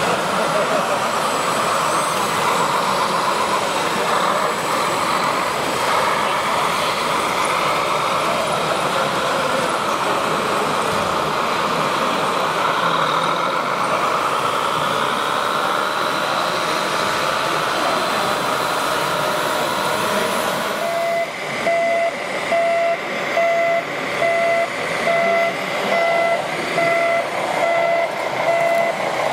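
Radio-controlled model truck running with a steady, wavering motor-and-gear whine. About two-thirds of the way through, a reversing beeper starts, beeping about once a second.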